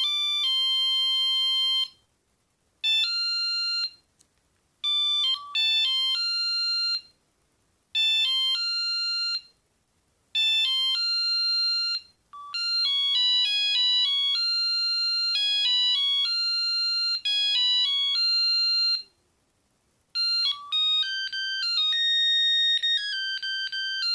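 Built-in melody ringtones of a Mitsubishi MT401 mobile phone playing through its small speaker: a beeping tune of one note at a time, in short phrases with brief pauses between them, then a longer unbroken run, and a different melody starting about 20 seconds in.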